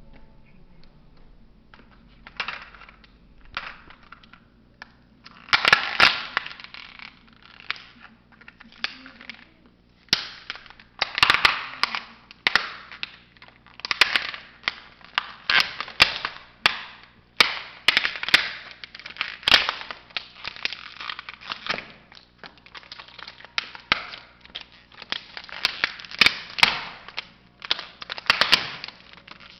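Hard plastic toy bus cracking and crunching under a stiletto-heeled sandal: a long series of sharp snaps and crackling crunches as the body gives way and breaks apart, loudest from about six seconds in.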